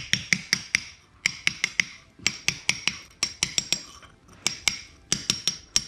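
Hammer tapping in quick bursts of about five light strikes, each with a bright clink, as the cut floor tile is chipped up off the concrete slab.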